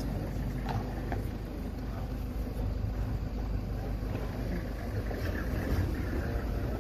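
Safari vehicle's engine idling with a steady low rumble.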